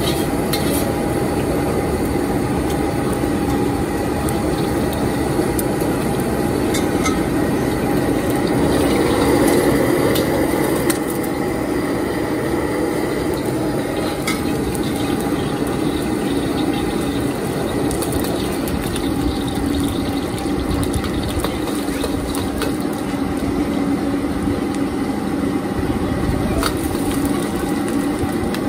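Steady roar of a high-flame gas wok burner with a faint hum, and a metal ladle now and then clicking and scraping against the wok; the roar swells briefly about ten seconds in.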